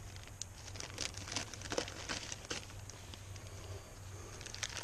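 Plastic parts bags crinkling and rustling in the hands, with scattered small clicks and crackles.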